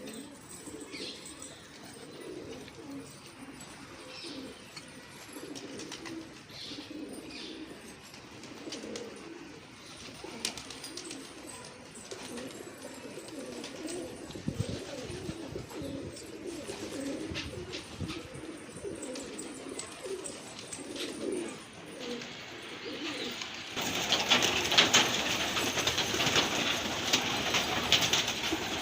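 Pigeons cooing, low repeated warbling coos. For the last few seconds a louder, hissy noise joins in.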